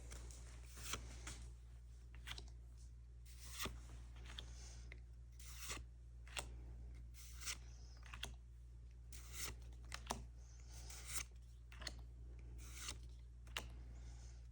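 Trading cards from a freshly opened booster pack being slid one by one across each other, a soft swish of card stock about once a second, over a faint steady hum.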